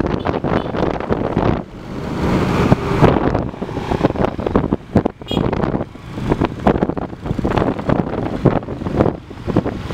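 Wind buffeting the microphone on a moving motorbike, over the steady running of the bike's engine.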